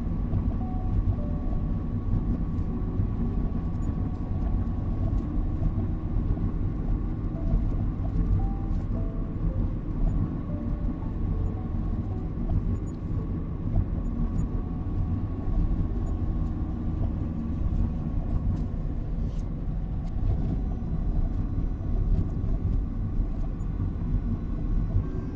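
Steady low rumble of a car driving, engine and road noise without change, with a soft melody of short notes faintly over it.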